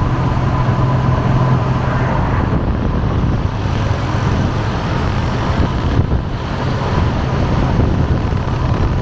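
Steady engine hum of a moving vehicle heard while riding in it, with road and wind noise over the microphone.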